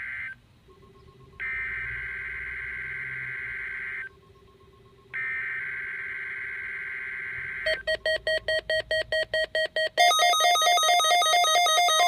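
NOAA Weather Radio SAME alert header for a Required Weekly Test, played through the weather radios: three bursts of buzzy digital data tones with about a second of pause between them. About three-quarters of the way in, the Midland receivers start alerting with rapid beeps, about six a second, joined near the end by louder, faster beeping in several pitches.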